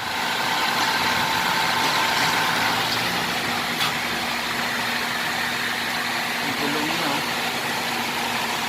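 Hyundai Santa Fe drivetrain running steadily at about 100 km/h, giving a constant hum with a faint whine over the noise of the spinning wheels and engine. The hum is the sign of a worn bearing inside the transfer case.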